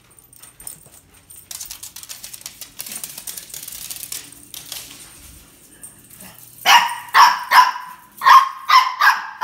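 Scuffling footsteps and movement as the dogs and their owner run through the house, then a dog barking rapidly, about six sharp barks in under three seconds near the end.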